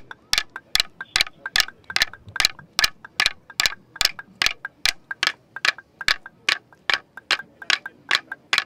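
Aboriginal clapsticks and boomerangs clapped together, keeping a steady ceremonial beat of about three sharp wooden strikes a second, some strikes doubled.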